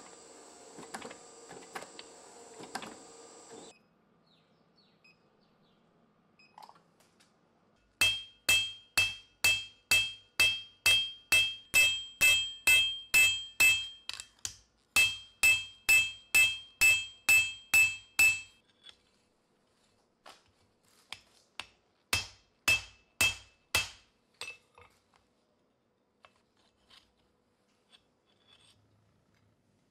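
Hand hammer striking red-hot steel on an anvil: a long run of ringing blows at about two a second, with a short break partway, then a few more blows and lighter taps. At the start a machine runs with a steady hum that stops a few seconds in.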